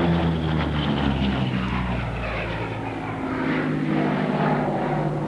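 Twin Allison V-12 engines of a P-38 Lightning at power in a low fly-by, the engine note dropping in pitch as it passes in the first couple of seconds. It dips a little in the middle and builds again toward the end.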